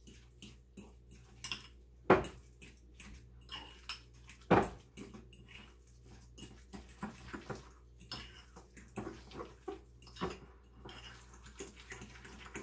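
A utensil stirring egg salad in a glass mixing bowl, scraping and clinking against the glass, with sharper knocks about two and four and a half seconds in.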